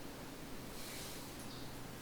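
Faint scratchy swishes of a comb being drawn through a horse's tail hair, two strokes about a second in, over a low steady hum.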